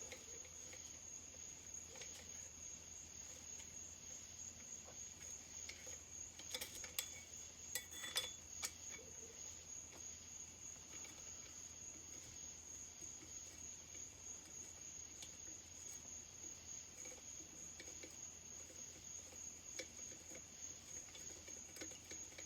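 Faint, steady high chirping of crickets throughout. A few light metal clicks come from an Allen key working the chainsaw's cylinder bolts loose, loudest about seven to eight seconds in.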